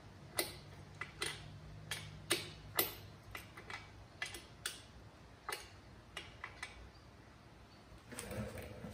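Hand tool working the rear chain adjuster bolt of a Kawasaki KX450F dirt bike: a string of sharp, irregularly spaced metal clicks as the adjuster is turned a few times to take up a slack drive chain.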